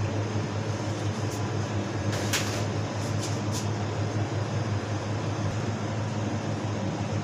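A steady low machine hum over a soft even hiss, with one short scrape or rustle a little over two seconds in and a few faint ticks after it.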